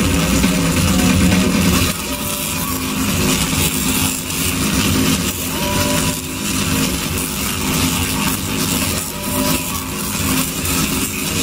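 Tesla coils discharging: high-voltage lightning arcs making a loud, harsh electric buzz with a steady low pitch, louder for the first two seconds.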